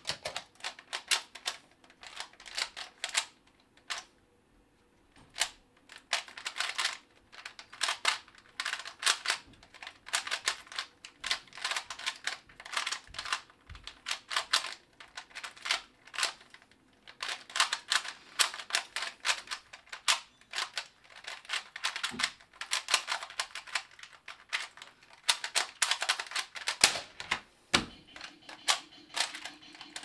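A 3x3 Rubik's cube being turned fast one-handed in a speedsolve: rapid runs of plastic clicking and clacking, in bursts with short pauses between them.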